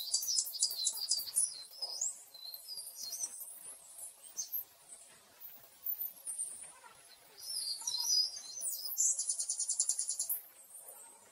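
Small birds chirping and twittering in short high-pitched calls, dense at first and sparser in the middle, with a fast even trill about nine seconds in.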